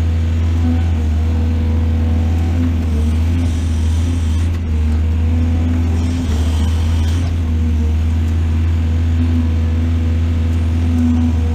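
Excavator's diesel engine running steadily under load, with a brief knock about four and a half seconds in.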